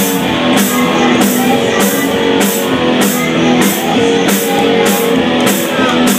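A live rock band playing: a drum kit with a cymbal struck on every beat, a little under two hits a second, under a loud, steady electric guitar line.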